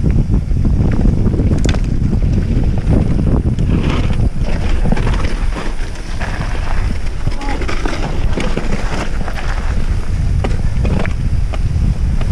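Wind buffeting the camera's microphone as a mountain bike rolls fast down a dirt singletrack, with frequent short clicks and rattles from the bike over the bumps of the trail.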